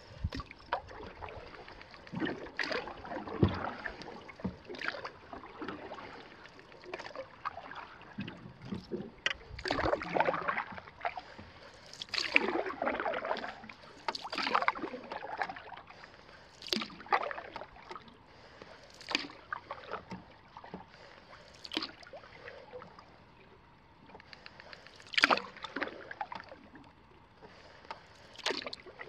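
Paddling a canoe: the paddle dips and pulls through the water about every two to three seconds, each stroke a short splash and trickle of water.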